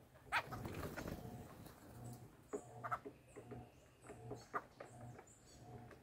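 Birds at a fruit feeder on a corrugated fibre-cement roof: scattered taps and knocks as they land, hop and peck on the roof sheets, with a short rustle near the start and a few faint high chirps.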